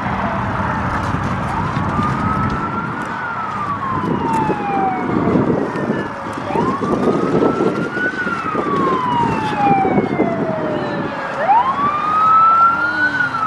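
Emergency vehicle siren wailing: three slow cycles, each rising quickly in pitch and then falling away gradually.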